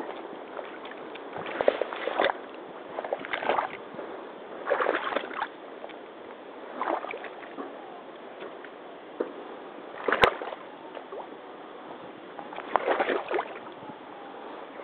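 Rubber hip boots wading through a shallow puddle: irregular sloshing and splashing of water with each step, a step every second or two. A single sharp crack about ten seconds in.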